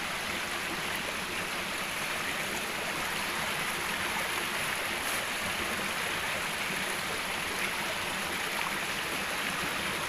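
Shallow rocky stream running over boulders: a steady rush of water.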